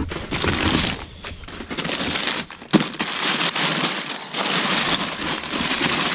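Crumpled kraft packing paper rustling and crinkling as hands pull it out of a cardboard box, with one sharp knock about two and a half seconds in.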